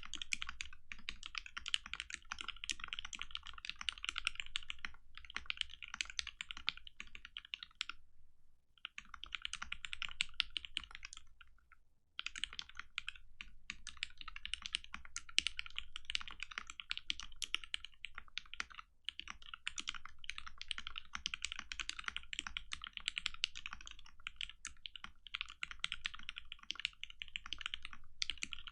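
Custom mechanical keyboard with a polycarbonate plate, lubed Retooled Black linear switches and Infinikey Islander keycaps, typed on in a fast continuous stream of keystrokes, with two short pauses about eight and twelve seconds in.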